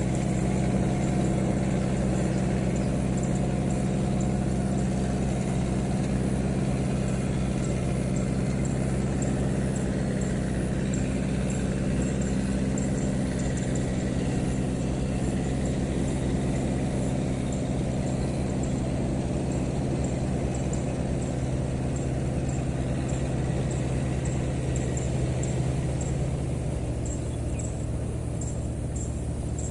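An engine idling steadily with a low, even hum that eases off slightly near the end.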